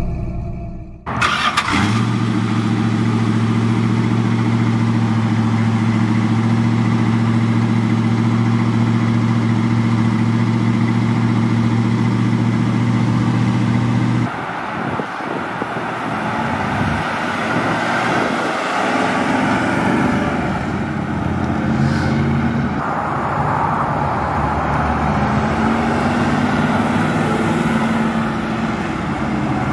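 1970 Dodge Coronet Super Bee's 440 Six Pack V8 idling steadily with a deep, even exhaust note. About halfway through, the sound changes as the car drives off, with engine revs rising and falling.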